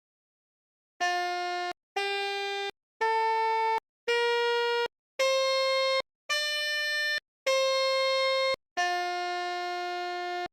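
Pianika (melodica) playing a Basuri-style telolet bus-horn tune: eight separate held reedy notes, starting about a second in, each under a second long with short gaps, stepping up and down in pitch, the last one held longer.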